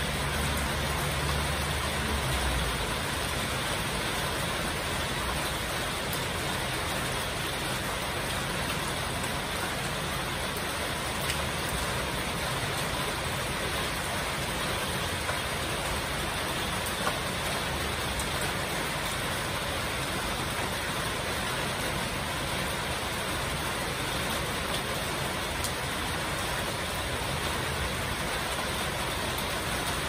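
Heavy rain falling steadily, drumming on corrugated metal roofs. A low rumble fades out in the first couple of seconds.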